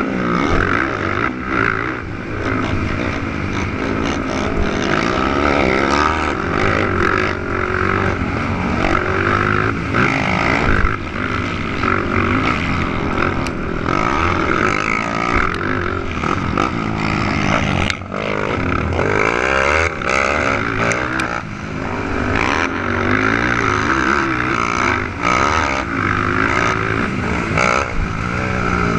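Engines of 450cc four-stroke racing quads running hard during a motocross heat, revving up and down continuously as they accelerate and back off.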